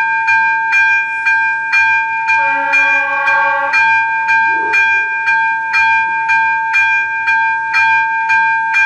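Level-crossing warning bell (ZV-02) ringing in a steady rhythm of about two strokes a second, each stroke a bright ringing tone: the crossing is activated and a train is approaching. About two and a half seconds in, a lower held tone sounds over it for about a second.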